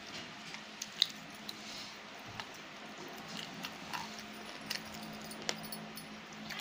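A hand mixing rice and chicken curry on a steel plate, making scattered small clicks and soft squishes, the sharpest click about a second in.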